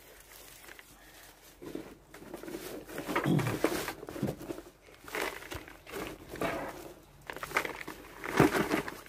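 Handfuls of tree-bark potting chips scooped from a cardboard box and dropped into a plastic plant pot: irregular rustling and crunching, several handfuls, the loudest near the end.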